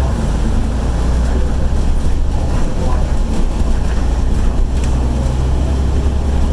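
Steady low rumble of a moving road vehicle's engine and tyres, heard from inside the cabin.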